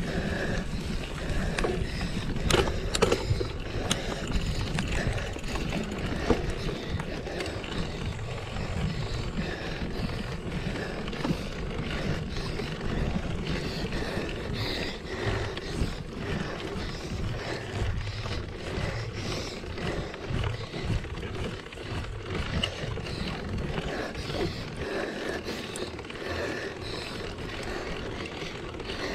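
Mountain bike being ridden over rough ground: a steady rumble of tyres and rattling bike parts, with wind on the microphone and a few sharp knocks about three seconds in.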